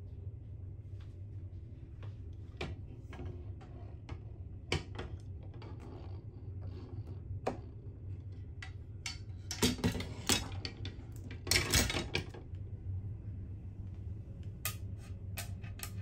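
Wooden clothes hangers clicking and rattling against metal wall hooks as they are handled, with scattered small knocks and two short bursts of rattling a little past the middle. A steady low hum of the ship runs underneath.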